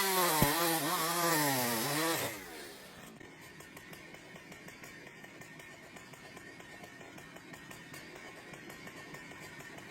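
Chainsaw engine revving, its pitch dipping and rising several times, then dropping away about two seconds in to a faint steady noise.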